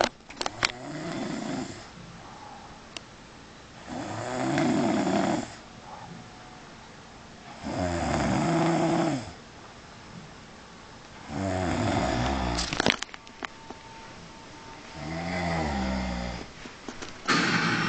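A sleeping boy snoring, one long snore about every three and a half seconds. A few sharp clicks fall between the snores.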